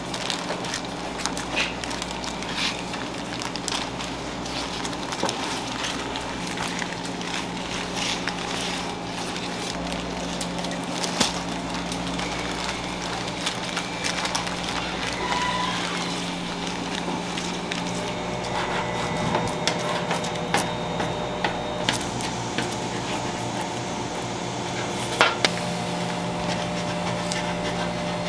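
Baking paper being peeled off sheets of sponge cake and handled, with scattered crinkles and crackles, over a steady hum of kitchen machinery.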